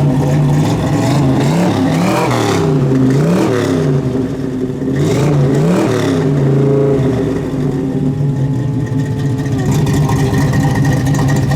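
Loud exhaust of a 1984 Chevrolet El Camino, its engine revved several times in the first half, then running steadily at idle.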